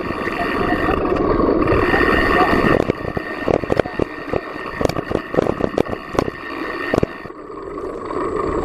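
Mountain bike ridden over a rough grassy track, heard from an action camera mounted low on the bike: a steady rush of wind and tyre noise with frequent knocks and rattles as the bike goes over bumps, easing off briefly about seven seconds in.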